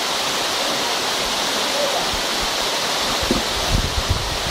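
Small waterfall splashing steadily down over rocks, a continuous rushing hiss. A few low thumps break in about three to four seconds in.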